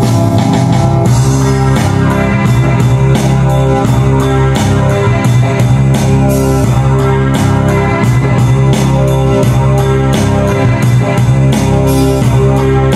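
Roland VA-7 arranger keyboard playing a light rock auto-accompaniment style, with drums, bass and guitar keeping a steady beat and a melody played over it on the keys.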